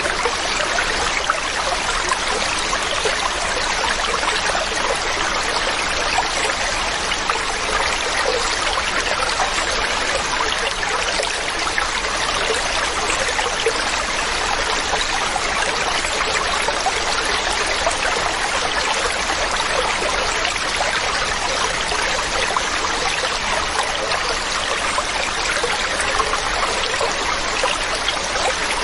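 Water of a waterfall or cascading stream rushing and splashing steadily, an even unbroken roar of falling water.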